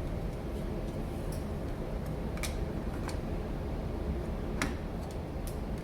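A few irregular light clicks and taps of the smart lock's parts being handled and fitted, over a steady low background hum.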